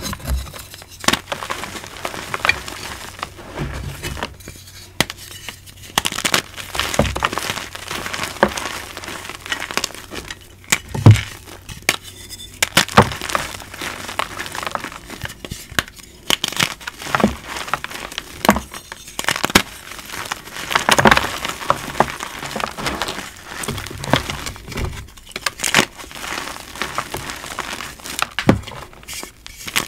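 Hands crushing and crumbling dry gym chalk blocks and reformed chalk pieces: an irregular run of crisp crunches and crackles, with loose chunks and powder grating under the fingers.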